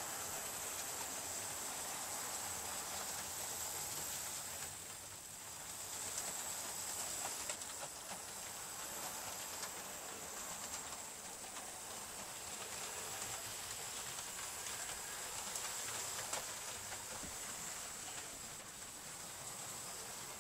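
Hornby InterCity 125 model train running around the layout's track: a steady high-pitched hiss of motor and wheels on the rails, with scattered faint clicks.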